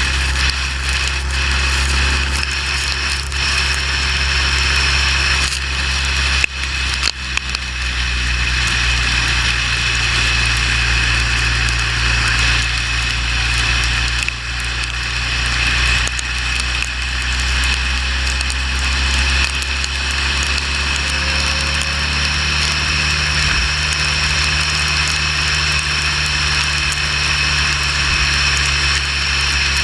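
Motorcycle engine droning steadily at highway speed under a constant hiss of wind and tyre spray on a wet road. A few brief clicks come about six seconds in, and the engine note shifts about twenty seconds in.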